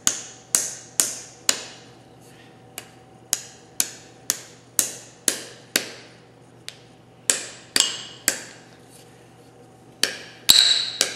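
Hammer blows driving the wedge into the eye of a new hammer handle: sharp metal-on-metal strikes about two a second, each ringing briefly, in three runs with short pauses between, the loudest near the end.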